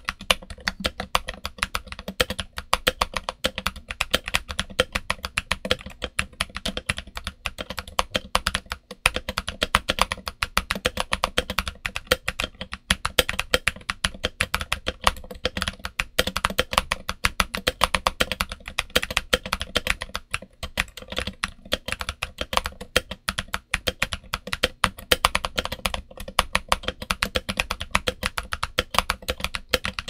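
Steady fast typing on a Redragon K530 mechanical keyboard fitted with Gazzew U4Tx tactile switches, SA-profile ABS keycaps, switch pads, a Tempest mod and felt: a dense stream of keystrokes with a few brief pauses.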